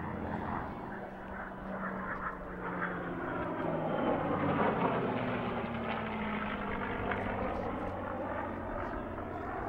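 An F-22 Raptor jet fighter and a P-51 Mustang piston-engined fighter flying past together in formation: engine noise that swells to its loudest about four to five seconds in, with a tone falling in pitch as they go by.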